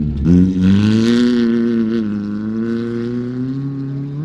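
Rally-modified hatchback's engine revving hard as the car powers past on a dirt track, its pitch dipping briefly at the start then climbing and holding high, with a hiss of loose dirt spraying from the tyres about a second in. The engine note then carries on steadily as the car pulls away.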